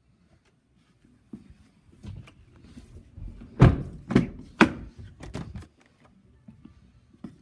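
Heavy thunks and knocks from the cab door of a GMC Sierra 2500 HD pickup being opened and shut. The two loudest thuds come about a second apart in the middle, with lighter knocks around them.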